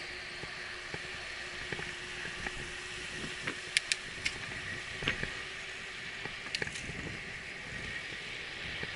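Bicycle rolling along a paved path at about 20 km/h: a steady hiss of tyres and wind with scattered rattling clicks from the bike. A few sharp clicks come about four seconds in, and two more a little before seven seconds.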